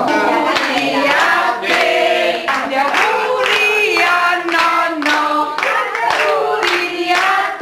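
Several people singing a birthday song together in chorus, with long held notes.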